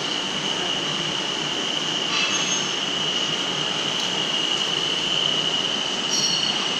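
Electric drive motors and worm gearboxes of a welding roller rotator running, a steady high-pitched whine over an even mechanical hum.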